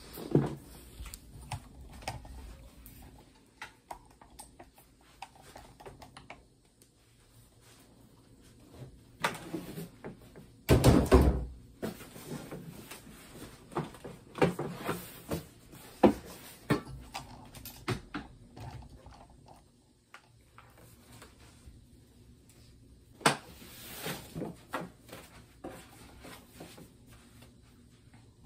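Scattered knocks, bumps and rustles of things being handled and moved, with the loudest thump about eleven seconds in.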